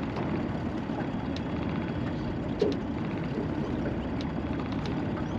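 Steady low rumble of strong wind buffeting the microphone, with a few faint clicks and a light knock about halfway through.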